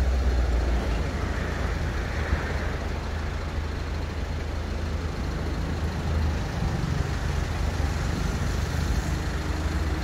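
Steady surf breaking on a sandy beach, under a heavy, constant low rumble of wind on the microphone.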